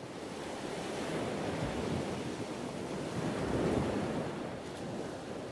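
Ocean surf breaking on a beach: a steady rushing wash that swells and ebbs.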